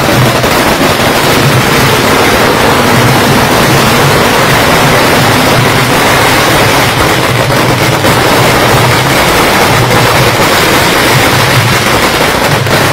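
A long string of firecrackers going off in an unbroken rapid crackle, loud and dense, with no pauses.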